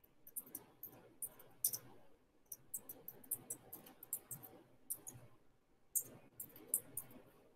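Faint, irregular clicking of someone working at a computer keyboard and mouse, several clicks a second in uneven runs.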